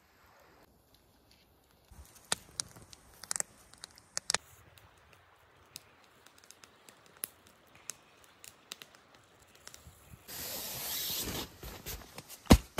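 Scattered faint clicks and taps, then about ten seconds in a loud steady hiss of air lasting nearly two seconds: air rushing through the valve of an inflatable sleeping pad.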